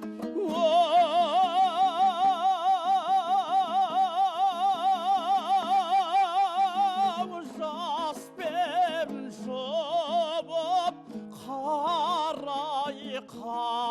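Kazakh folk song sung with instrumental accompaniment: the singer holds one long note with wide vibrato for about six and a half seconds, then moves into shorter ornamented phrases over steady lower instrumental notes.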